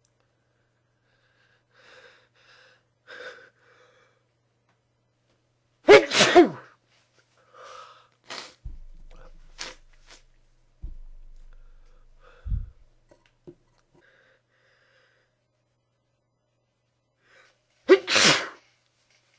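A person sneezing into a handkerchief: two loud sneezes, one about six seconds in and one near the end, with softer short breathy sounds before and between them.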